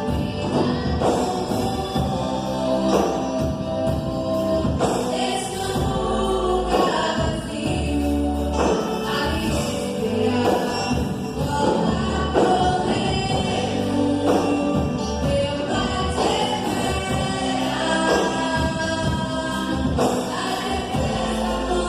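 Gospel band playing with a choir singing over a steady beat.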